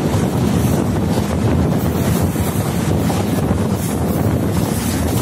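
Wind rushing over the microphone at the side of an express train running at speed, over the steady low rumble of the moving coaches.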